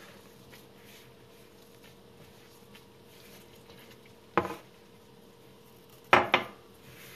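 Hand mixing milk into flour in a plastic bowl, faint and soft, broken by a sharp knock about four seconds in and a louder double knock near the end.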